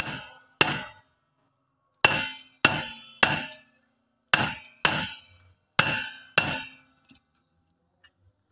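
Steel bar striking a Toyota Kijang's rear brake drum: nine ringing metal clangs in loose pairs and threes, knocking the drum loose from the hub. A few faint taps follow near the end.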